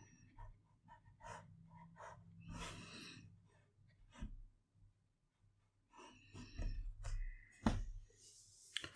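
Quiet brush-and-palette sounds while watercolour paint is worked: soft brushing and scraping strokes, with a sharp tap about three-quarters of the way through and another near the end.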